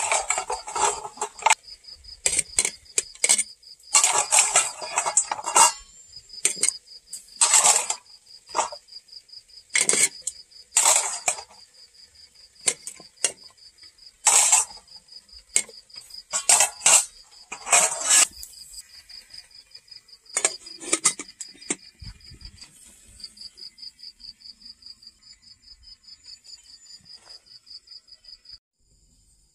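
Metal kettle boiling hard on a wood fire, its lid rattling in irregular loud bursts as the steam pushes it up. Under it, insects chirping steadily, which stop near the end.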